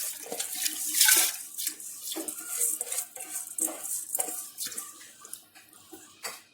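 Rice being tipped into a pot of milk with a splash, then a metal spoon clinking and scraping against the pot in a string of short knocks as it is stirred, fading near the end.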